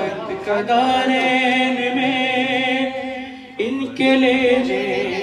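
A man's solo voice singing a manqabat, a devotional Urdu song, in long held notes with a strong vibrato. There are two drawn-out phrases, split by a brief breath about three and a half seconds in.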